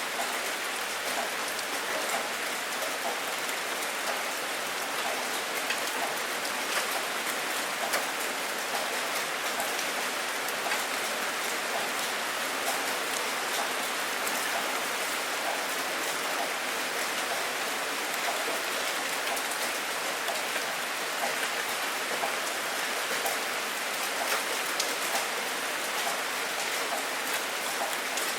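Steady rain falling, an even hiss of many small drops striking a surface, unchanging throughout.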